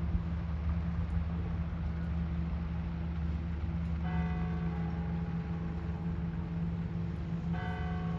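Steady deep hum of an idling vehicle. About four seconds in, and again near the end, a bell-like ringing sounds, several tones at once, some of them lingering.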